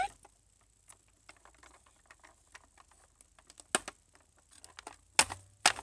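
Light plastic tapping and clicking from handling the VTech Explore and Learn Helicopter toy, with three sharper clicks near the end, like its buttons being pressed.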